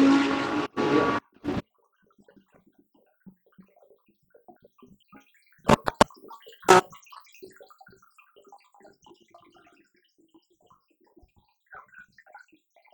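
GT race car engine running loud for about the first second, then cutting off abruptly, with a short further burst just after. Then only faint scattered noises, with a few sharp clicks about six seconds in.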